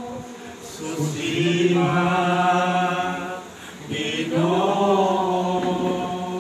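A man singing a slow Cebuano worship song into a microphone, in two long drawn-out phrases, the second starting about four seconds in.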